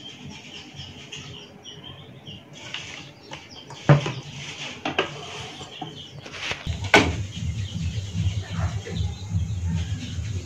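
Birds chirp for the first couple of seconds. Then a loud knock and a few sharp clicks come as the frying pan is handled on the gas stove. From about seven seconds in, the lit gas burner under the pan gives a steady low rush.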